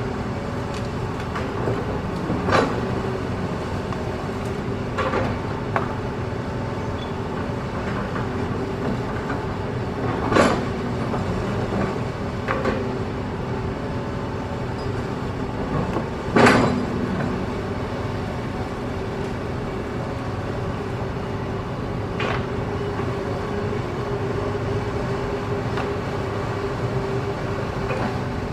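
Hitachi ZX210 hydraulic excavator's engine running steadily under work, with about seven sharp metallic clanks as the bucket strikes and scoops hard rock; the loudest clank comes about two-thirds of the way through.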